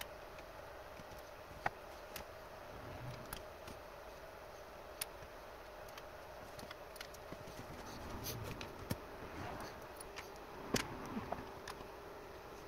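Hands working an Allen key and screws on the aluminium frame of a DIY 3D printer: scattered small metal clicks and taps with light rubbing between, the sharpest click about two seconds in and another near the end.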